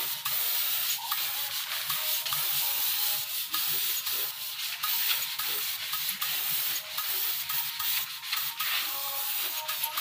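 Compressed-air spray gun hissing steadily as it sprays a wood colour coat, with brief breaks between passes.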